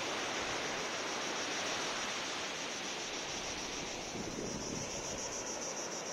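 Sea waves washing onto a sandy beach, with wind buffeting the microphone, a steady rushing noise. A high, evenly pulsing buzz runs behind it and grows stronger near the end.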